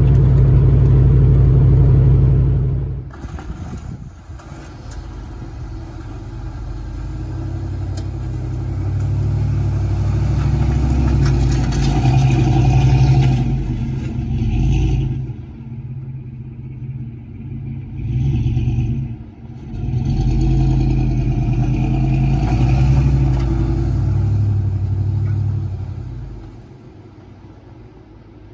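Pickup plow truck's engine running and revving, swelling and easing off several times as it drives and works the snow. For the first few seconds it is heard from inside the cab on the road, then from outside.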